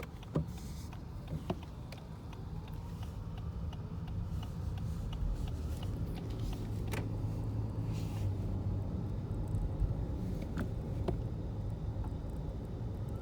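Rattling inside a 2019 Lexus ES while it is being driven: irregular sharp clicks and ticks over a steady low road and engine rumble that grows gradually louder.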